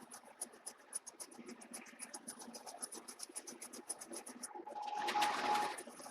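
Lathe turning a weld-repaired steel trunnion wheel on a light finishing pass, with a rapid, even ticking of about eight a second. About five seconds in comes a louder scraping stretch with a steady ringing tone as the tool cuts through the hardened skin, then it eases off.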